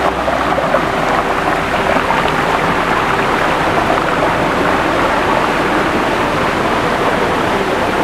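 Water pouring over a rock lip into a pool: a small waterfall cascade rushing steadily and loudly.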